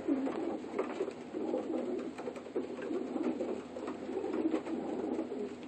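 Racing pigeons cooing steadily in a loft, several birds at once in a low, overlapping murmur, with a few light clicks and rustles.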